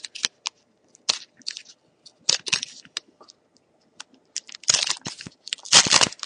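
2011-12 Panini Certified hockey card pack wrapper being torn open by hand and crinkled: scattered crackles, a short lull in the middle, then a louder run of crinkling near the end.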